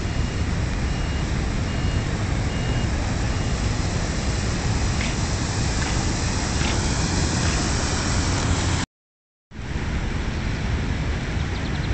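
Steady rushing noise of wind buffeting a phone's microphone outdoors, with a brief complete dropout about nine seconds in.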